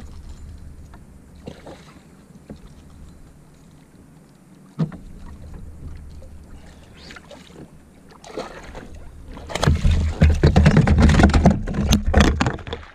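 A hooked fish thrashing and splashing at the surface right beside an inflatable boat: a few seconds of loud, rapid splashing near the end, after a quieter stretch of faint water lapping with occasional knocks against the boat.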